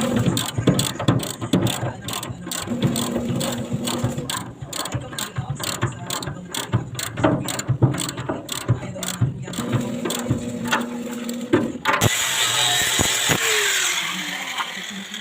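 Rapid, dense metallic clicking and rattling from a power tool working on metal. A steady motor hum comes and goes in short spells. About twelve seconds in the clatter stops, and a hiss and a falling whine follow as the tool spins down.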